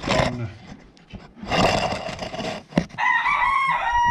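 A rooster crowing: one long call beginning about three seconds in, wavering at first and then held on a steady note, after some rustling and knocks.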